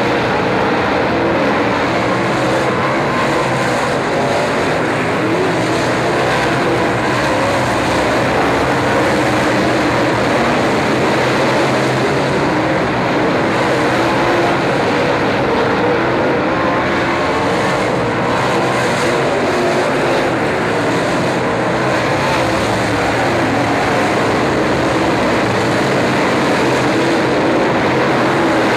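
Several dirt late model race cars' V8 engines running hard at racing speed: a loud, steady mix of engine notes whose pitch wavers up and down as the cars go through the turns.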